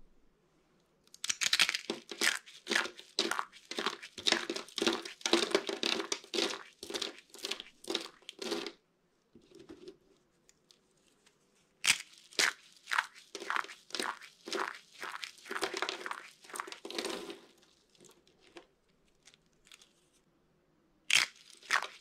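Dry soap curls crushed and crumbled in the hands: dense runs of crisp crackling crunches lasting several seconds, broken by short pauses, with a fresh run starting near the end.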